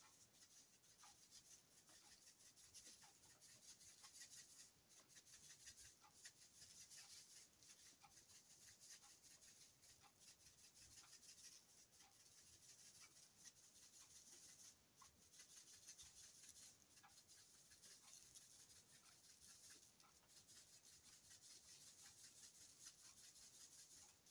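Very faint salt being shaken from a salt shaker over halved potatoes: scattered soft ticks of falling grains over a quiet hiss.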